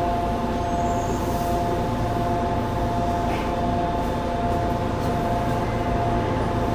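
Yokohama Municipal Subway 3000A-series train standing at the platform, its onboard equipment giving a steady hum with a few steady tones.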